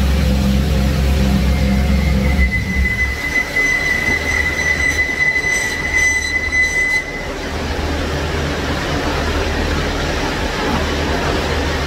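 Mazda RX-7's three-rotor rotary engine idling, then going quiet about two and a half seconds in. A steady high-pitched whine follows for about five seconds, over a loud, steady rushing noise.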